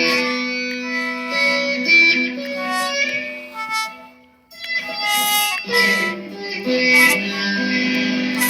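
Instrumental music: held notes and chords that change every second or so, dropping almost to silence about four and a half seconds in, then starting again.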